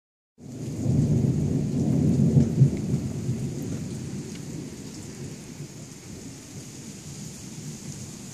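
A long roll of thunder rumbling, loudest in its first two or three seconds and slowly dying away, over the steady hiss of falling rain.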